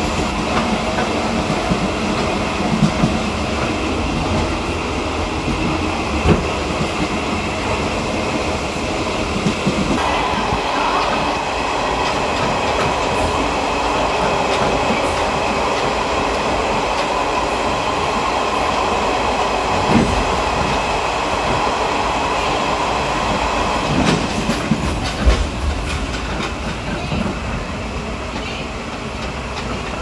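Taiwan Railway blue ordinary-train coaches running, heard at the open gangway between two cars: a steady rumble of wheels and running gear with clatter from the steel gangway floor plates and a few louder knocks. A faint steady whine joins about a third of the way in.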